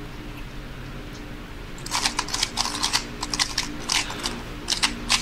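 A 3x3 speedcube turned at full speed: a fast, dense run of plastic clicks and clacks starting about two seconds in, over a steady low room hum.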